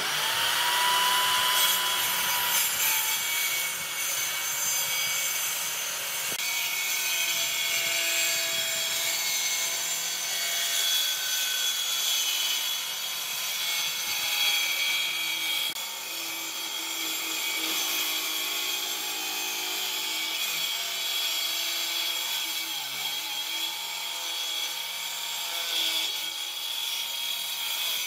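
Electric power tool working wood: a steady grinding, rasping hiss over a motor's whine, running without a break and stopping at the end.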